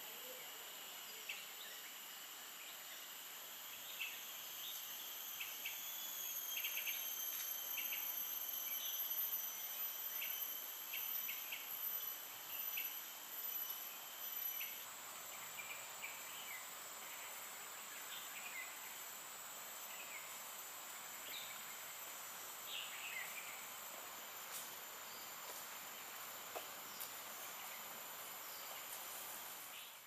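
Insects trilling in several steady high tones, one of which stops about halfway through, with short bird chirps scattered throughout.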